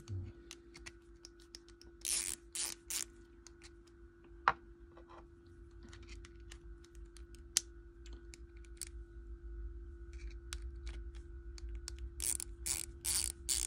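A Wera metal Cyclop 1/4-inch ratchet and socket being handled and worked in gloved hands. It gives scattered small metallic clicks, with a few short rasping bursts about two seconds in and again near the end.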